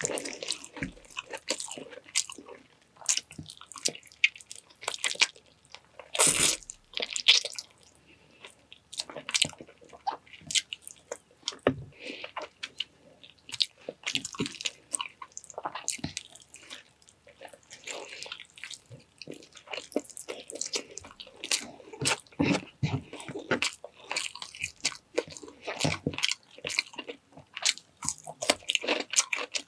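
A person eating close to the microphone: chewing and biting food in an irregular run of small clicks and crunchy bites, with a few louder bites now and then.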